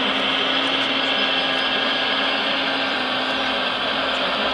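Electric hydraulic pump of a radio-controlled model Liebherr 946 excavator running with a steady whirring whine as the boom and bucket work.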